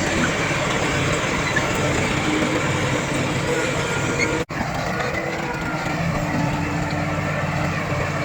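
Diesel engines of heavy earthmoving machinery running steadily under load, with a continuous low rumble and mechanical clatter. The sound drops out for an instant about four and a half seconds in, then resumes the same.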